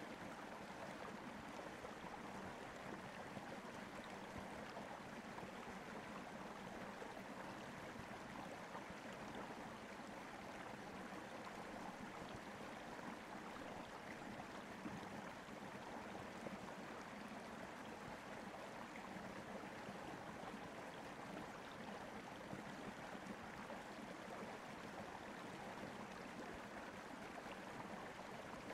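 Faint, steady rushing hiss, like running water in a stream.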